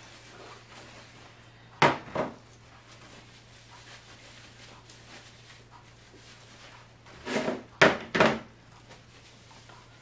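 Filled jars with metal lids being knocked down onto a tray and countertop as they are wiped and put back: two sharp knocks about two seconds in, then a quick run of three knocks near the end.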